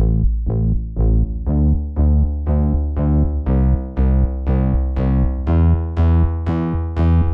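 Music: synthesizer and electric keyboard chords struck in an even rhythm, about two a second.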